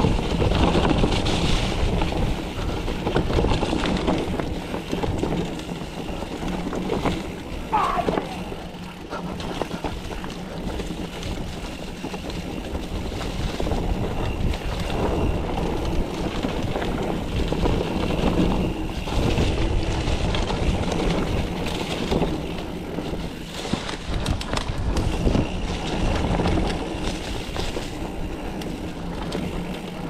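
Mountain bike descending a dirt trail: wind buffeting the GoPro's microphone over tyre noise, with the bike rattling and knocking over bumps throughout. A brief squeal comes about eight seconds in.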